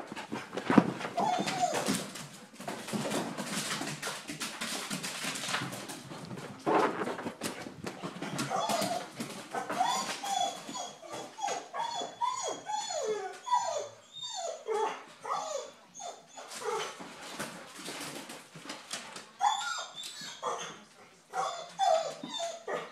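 Dogs at rough play: quick knocks and scrabbling at first, then a dog giving many short whining yips in quick succession, sliding up and down in pitch, through the rest.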